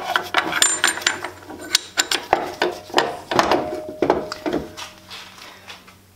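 Metal parts of a Jet JWL-1642EVS lathe headstock clinking and knocking against the spindle as they are fitted by hand: a quick run of clicks and clanks, some with a short metallic ring, dying away about four and a half seconds in.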